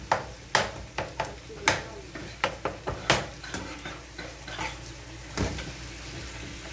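Perforated metal skimmer spoon scraping and knocking against a nonstick frying pan as ground beef and vegetables are stirred, over a soft sizzle. The knocks come in quick, irregular strokes through the first half and thin out after that.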